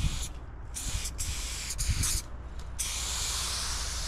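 Aerosol spray paint can hissing in several short bursts, then one steady, longer spray from just before three seconds in, as paint is laid on a train car's side panel.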